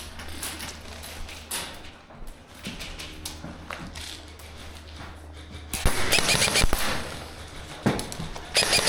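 Airsoft gunfire: a burst of rapid shots about six seconds in and another short burst near the end, with quieter scattered clicks before.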